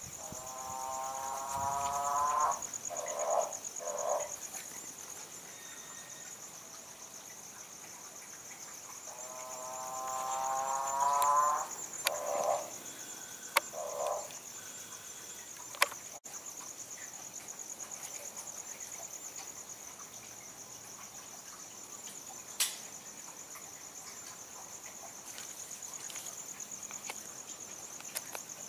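Crickets or other night insects chirping steadily in a high, fast-pulsing trill. Twice, a louder animal call of about two seconds rises in pitch, each followed by two short calls. A few sharp clicks sound in the middle.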